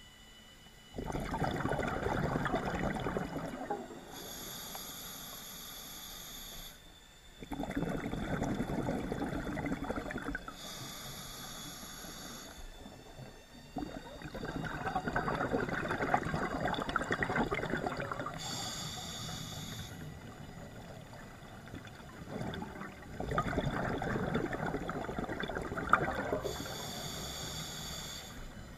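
Scuba diver breathing through a regulator underwater: about four breath cycles, each a few seconds of bubbling exhale alternating with a shorter hissing inhale.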